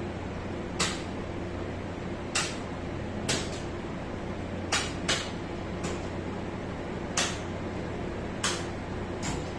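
Steady low machinery hum with about nine sharp clicks or knocks at irregular intervals, like switches or metal fittings being worked.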